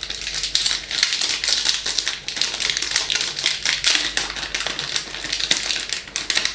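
Plastic lure packet crinkling and rustling in the hands as it is opened, a dense crackle of small clicks throughout.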